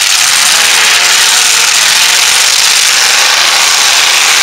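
Demolition derby pickup trucks' engines running loudly at high revs, a steady harsh din with no break.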